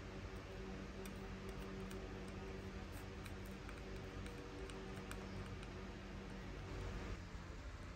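Faint, scattered light ticks of a soldering iron tip working on a phone's circuit board and flex-cable joint, over a steady low hum.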